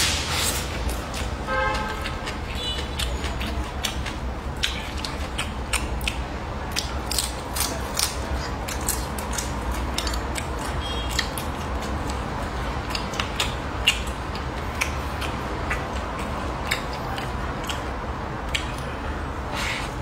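Close-miked eating sounds: wet chewing and smacking of a mouthful of rice and fried pork, with scattered sharp clicks of chopsticks against the plate, over a steady low hum.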